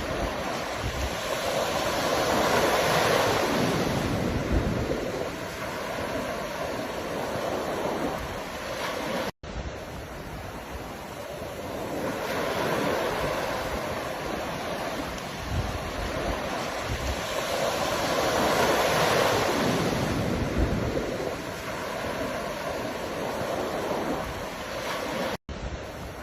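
Ocean waves breaking and washing on the shore, swelling and fading in slow surges several seconds apart. The sound cuts out to silence twice, for an instant each time.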